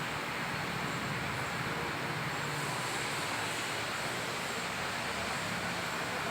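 Z3925 radial drilling machine running, its gearbox giving a steady mechanical whir with a low hum underneath.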